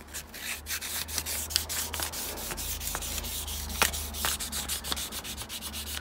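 Fine wet-and-dry abrasive paper, soaked and lubricated, rubbing in quick back-and-forth strokes over the painted frame of a vintage Sparta bicycle, lightly cutting back the top layer of oxidized paint.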